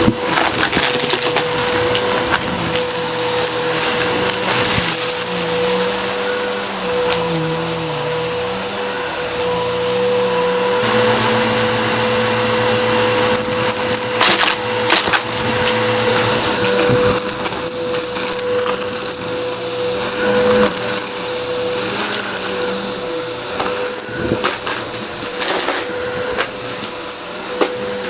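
Vacuum cleaner running with a steady whine while it sucks up crunchy dry debris, which crackles and clicks as it goes up the nozzle.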